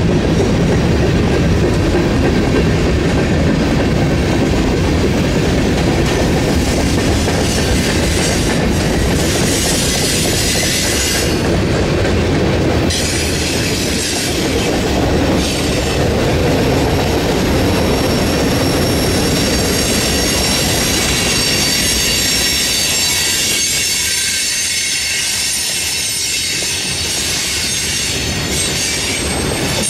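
Freight train cars rolling past close by, a loud steady rumble of wheels on rail. High-pitched wheel squeal rings over it about a third of the way in, then again through the second half.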